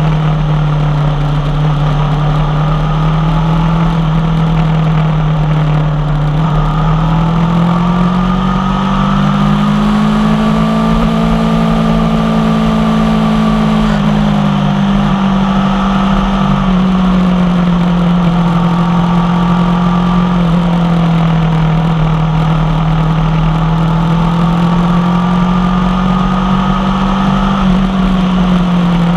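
Aprilia Tuono V4 1100 Factory's V4 engine through an unbaffled carbon exhaust, running steadily under way, its pitch rising and falling gently a few times as the throttle changes.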